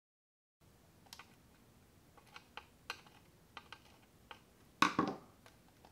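Light, scattered clicks and taps from a monitor circuit board and a small pointed hand tool being handled, with a louder short knock and rattle just before five seconds in.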